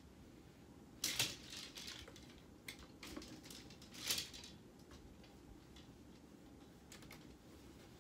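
Clothes hangers clicking and scraping on a closet rod as garments are pushed along and handled, with fabric rustling. A burst of clatter comes about a second in, another around four seconds, and a few single clicks follow near the end.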